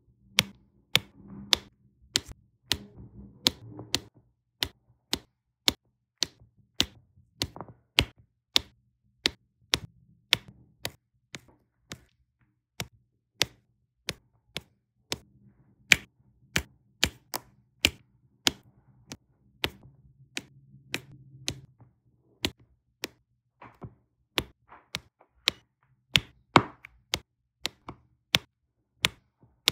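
Diamond-painting drill pen tapping resin drills one by one onto the sticky canvas: a steady run of short, sharp clicks, about three every two seconds.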